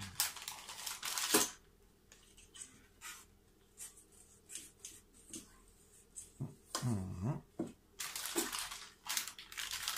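Spatula scraping soft filling around a stainless steel mixing bowl and pushing it into a plastic piping bag, with the bag crinkling, soft squishing and small taps. A sharp knock comes about a second and a half in, and a brief vocal sound about seven seconds in.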